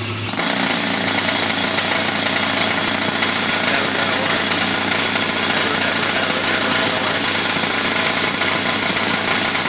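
Pneumatic jackhammer hammering steadily on a steel pin to drive it out of an excavator's bucket linkage, starting a moment in and running without a break.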